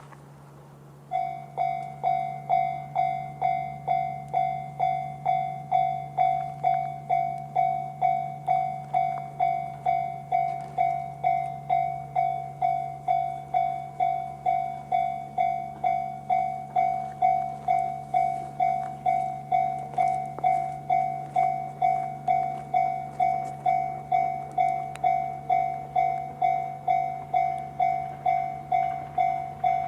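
Japanese level-crossing alarm sounding the JR standard electronic crossing bell: a pitched ding repeated evenly, just under two a second, starting about a second in. It is the warning that the gates are coming down for an approaching train.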